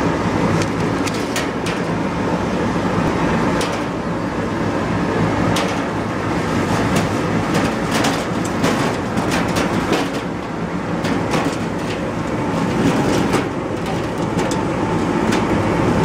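LXTP 5000 root vegetable peeling and washing machine running with a steady mechanical hum and rattle. Scattered knocks and clatter run through it as potatoes are tipped from a sack into its stainless steel hopper.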